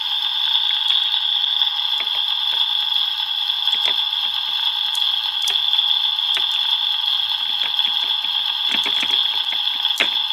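Electronic frying-sizzle sound effect from a toy kitchen stove, a steady thin hiss through its small speaker, triggered by setting the toy pan on the burner. Light clicks of plastic toy food and a plastic spatula tapping against the toy frying pan come through it at intervals.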